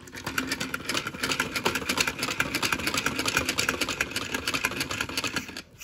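Plastic mechanism of a toy car wash set clicking rapidly and steadily as it is worked by hand, like a ratchet turning; it stops abruptly near the end.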